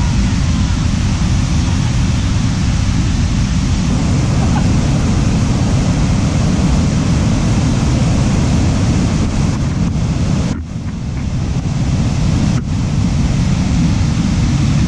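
Steady rushing of a jungle river and its waterfall close by, mixed with a low rumble of wind on the microphone. The sound dips briefly twice near the end.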